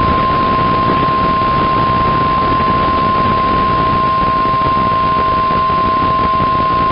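Weather Radio Canada's 1050 Hz warning alarm tone, one steady unbroken tone over the hiss of a weather radio receiver. It is the attention signal that comes before a severe weather warning message.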